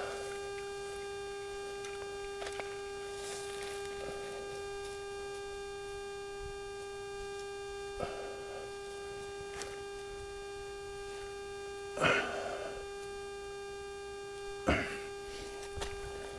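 A steady, even hum with a ladder of overtones, with a few brief rustling scrapes, the loudest about twelve seconds in.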